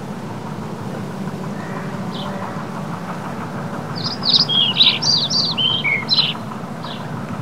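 A songbird sings a quick run of high, falling chirps from about four to six seconds in, with single chirps before and after, over the steady low hum of a distant JCB Fastrac tractor pulling a rotary hay rake.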